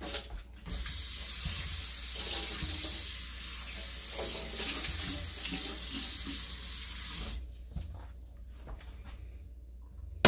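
Kitchen tap running into the sink, rinsing out a non-stick frying pan, for about seven seconds before it is shut off. A single sharp knock comes near the end.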